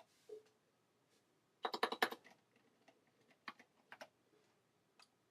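Typing on a computer keyboard: a quick run of keystrokes a little over a second and a half in, then a few single key presses spaced out after it.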